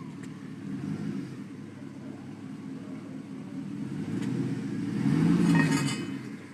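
Truck engine running at low speed, then revving up about five seconds in before easing off again.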